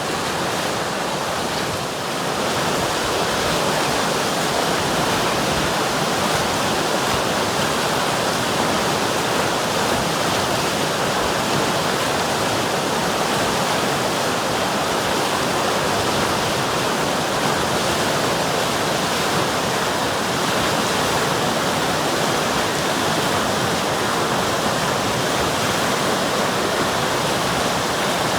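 River water rushing steadily over rocks in a continuous, even rush with no breaks, dipping slightly about two seconds in.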